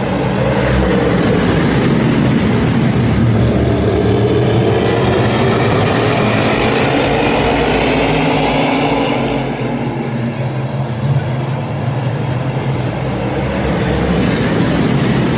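A pack of modified race cars' V8 engines running together at speed around the oval. The sound swells and sweeps in pitch as cars pass, then eases slightly about two-thirds of the way through before building again.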